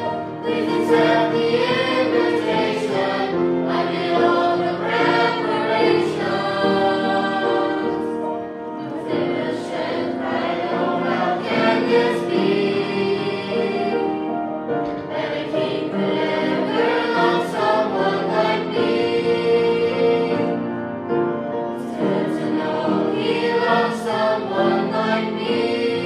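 A choir singing a hymn in long, held notes.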